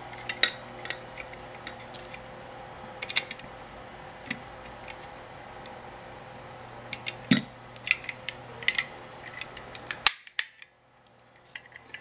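Scattered sharp metallic clicks and taps from a KLOM manual lock pick gun being reassembled: the pick fitted into its clamp and the clamp screw tightened with a screwdriver. A faint steady hum lies under it. A loud click comes about ten seconds in, and then the sound drops to near silence.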